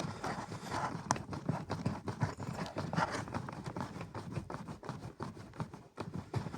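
Irregular small clicks, knocks and rustling of hands working a Torx screwdriver under the dashboard, unscrewing a self-tapping screw from the heater's lower cover.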